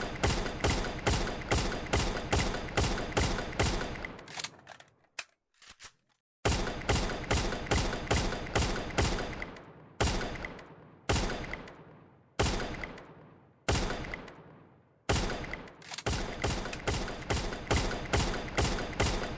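Machine gun firing, the 'woodpecker gun' sound: an even run of sharp shots at about three a second. After a short pause, single shots a little over a second apart ring out before the steady rapid fire comes back.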